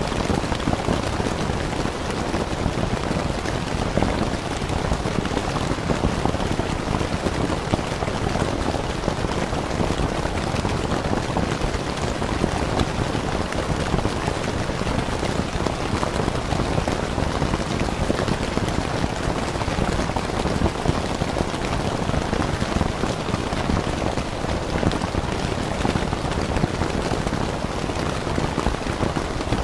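Steady rain falling on a tent: a dense, even wash of drops that does not let up.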